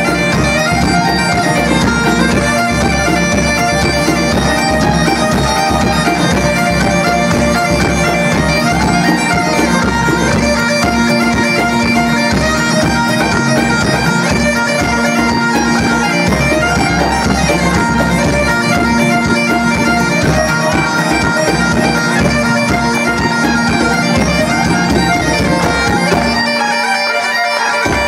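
Live Irish traditional band music: fiddles, button accordions, acoustic guitars and bodhrán over a drum kit, playing a tune with a steady drone note held underneath. The low drums and bass drop out near the end while the melody and drone carry on.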